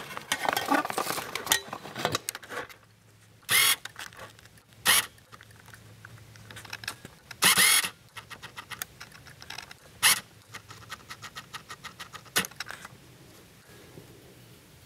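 Handling noise: about two seconds of rustling and light clatter, then a handful of short brushing scrapes every second or two with faint clicks between, dying down near the end.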